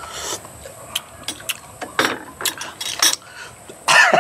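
A man slurps liquid from a spoon, then coughs and clears his throat about four seconds in.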